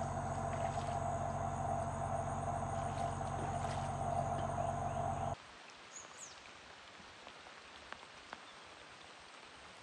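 Steady outdoor ambience over floodwater: a continuous drone with a low hum and a thin high-pitched tone. About five seconds in it cuts to much quieter outdoor ambience with a few faint ticks and a short chirp.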